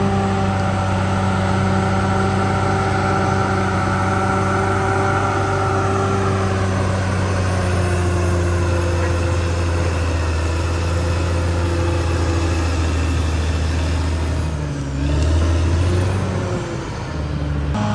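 CAT D6R XL bulldozer's diesel engine running steadily under load. Its pitch eases down about a third of the way through, and the engine note briefly dips and shifts twice near the end.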